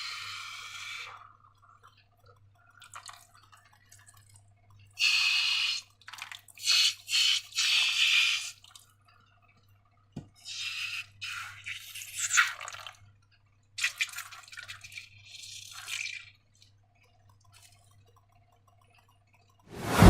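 Slime being squished and worked by hand, sticky crackling squelches in bursts of a second or two with short pauses between. A sudden, much louder burst comes at the very end.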